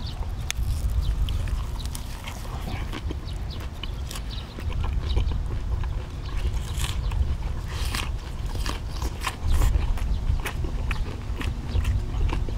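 A person chewing food close to the microphone, with many irregular small wet clicks, over a low rumble.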